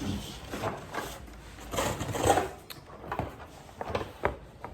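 Parcel packaging being handled and unwrapped: a run of sharp clicks and knocks, with a rustling scrape about two seconds in.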